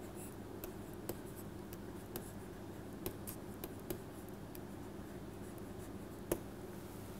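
Stylus writing on a tablet pen surface: a series of faint light taps and scratches, with one sharper tick about six seconds in, over a low steady hum.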